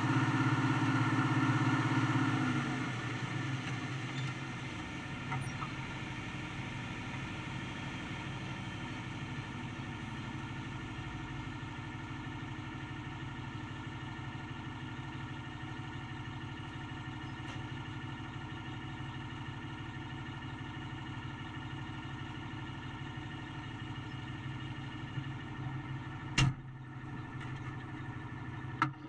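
Tractor engine and PTO-driven unloading machinery running steadily, heard through the cab glass. The sound is louder at first, then eases to a lower, even level about three seconds in. There is a single sharp knock near the end.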